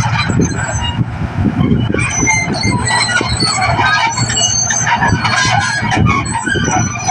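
New Holland rice combine harvester running steadily: a constant engine drone under rapid metallic clattering and short high squeals from its moving parts.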